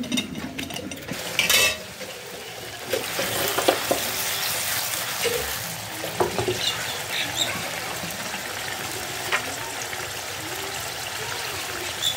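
Mushrooms sizzling and bubbling in their own juices in a steel saucepan over a gas flame, a steady hiss, with a few light knocks and clinks from the pan as it is handled.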